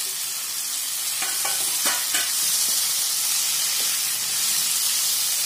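Vegetables and idli pieces frying in hot oil with a steady sizzle as a wooden spatula stirs them, with a few scrapes and knocks of the spatula in the pan between about one and two seconds in.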